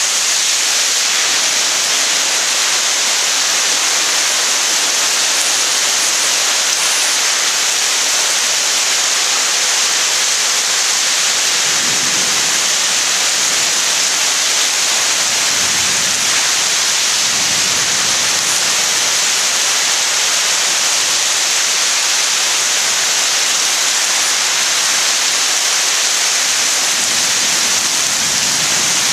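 Heavy thunderstorm rain pouring down in a steady, loud downpour.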